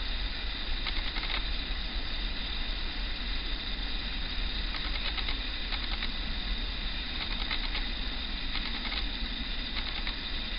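Class 56 diesel locomotive's V16 engine running steadily as the light engine pulls slowly away, heard as a low rumble under a steady hiss.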